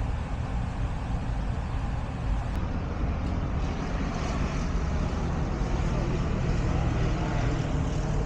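An airplane passing overhead: a steady low rumble that grows slightly louder over the seconds.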